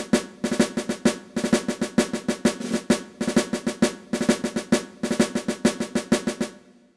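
Intro music of rapid snare-drum strokes and rolls, several hits a second, fading out near the end.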